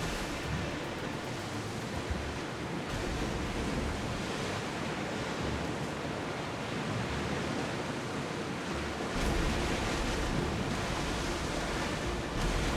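Sea waves and wind, a steady rushing hiss with uneven low rumbling surges, getting a little louder about nine seconds in.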